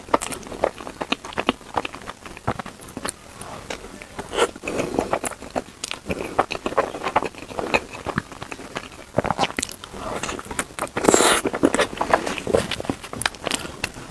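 Close-miked eating sounds of someone chewing bread: irregular wet clicks, smacks and soft crunches. A louder rustle comes about eleven seconds in.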